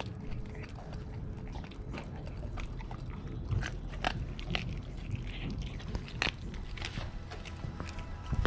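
Lycan Shepherd puppy chewing and biting a whole raw fish, with irregular wet crunches and clicks of its teeth.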